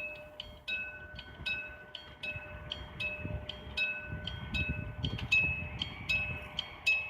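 Railroad crossing warning bell ringing in a steady, even rhythm of about two to three strikes a second. A low rumble, typical of a train approaching the crossing, grows under it from about halfway through.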